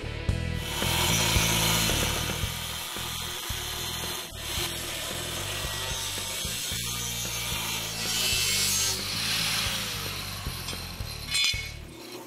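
Angle grinder with a cut-off disc cutting steel plate: a rough, hissing grind that swells and eases several times.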